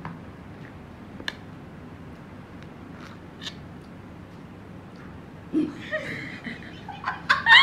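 Quiet room tone with a few faint clicks, then voices and laughter start about five and a half seconds in and are loudest near the end.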